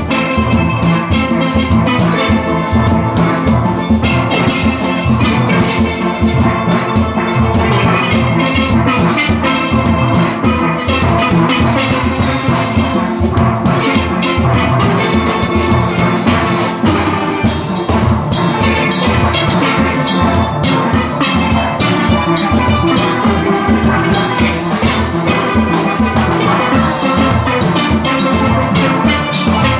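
A steelband playing live: a full set of steelpans, from high chrome tenor pans to large bass pans, struck with sticks in fast runs over a steady beat.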